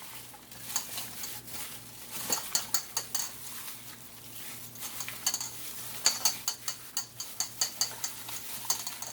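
Chicken wings being stirred together with a wet soy-and-spice marinade in a bowl: squelching and sloshing with bursts of quick clicks against the bowl.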